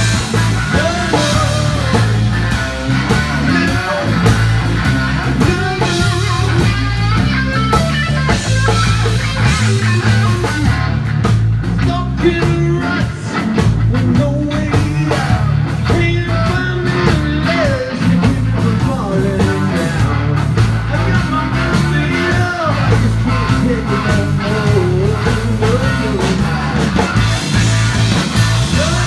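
Live blues-rock band playing: electric guitar lead with gliding, bent notes over bass guitar and drums.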